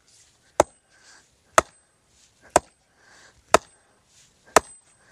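A stake cut from a mimosa branch being driven into the ground with five sharp blows, evenly spaced about a second apart.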